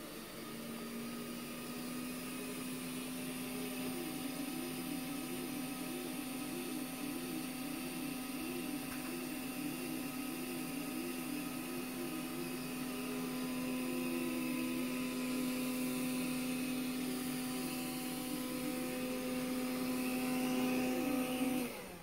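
Deebot robot vacuum running on carpet: a steady motor hum with a second tone that wavers up and down over it, growing slightly louder. Near the end everything cuts off suddenly as the vacuum's battery runs out.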